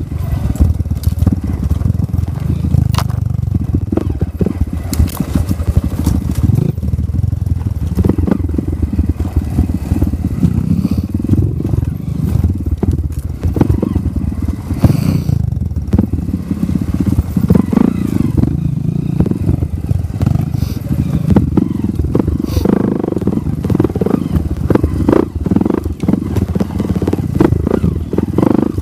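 Off-road motorcycle engine running at low speed, its note rising and falling with the throttle, with frequent knocks and rattles as the bike bounces over loose rock.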